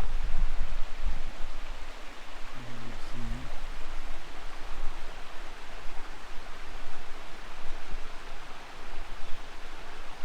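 Small creek waterfalls and cascades rushing, giving a steady, even hiss of falling water. A low rumble on the microphone in the first two seconds, and two short low tones about three seconds in.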